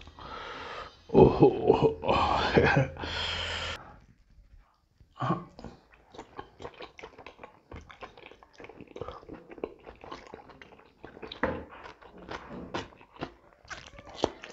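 Close-up mouth sounds of a man eating pork by hand. A muffled voice is heard for the first few seconds, then from about five seconds in come wet chewing, lip-smacking and sucking clicks, several a second.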